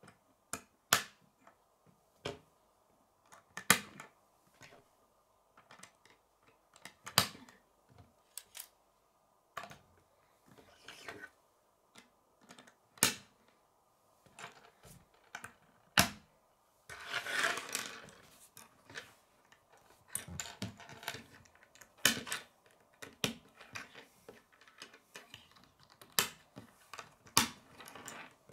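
K'nex plastic rods and connectors clicking as they are snapped together and set down on a wooden tabletop: a string of sharp, irregular clicks, with a longer rustle of pieces about 17 seconds in.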